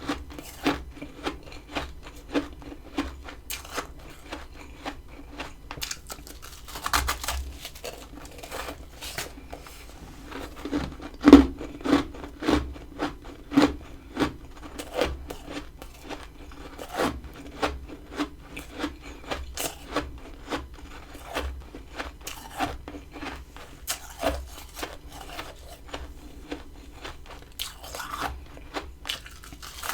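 Close-up crunching of freezer frost being bitten and chewed: a steady run of sharp crunches, a few a second, with the loudest burst about eleven seconds in.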